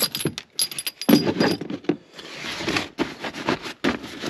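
Metal tools clinking and knocking as they are packed into an under-floor storage well, then a fabric tool bag rustling as it is pressed down on top.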